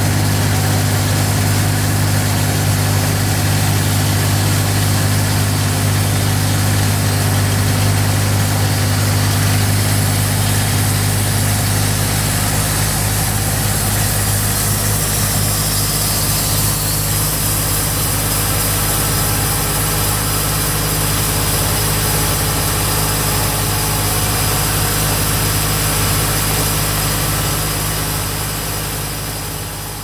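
Large outdoor bandsaw sawmill's engine running steadily with a low drone, fading out near the end.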